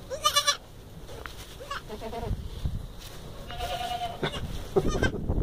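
Newborn goat kids bleating: a loud, high bleat right at the start, shorter calls around two seconds in, and another bleat near four seconds, with rustling in the straw between them.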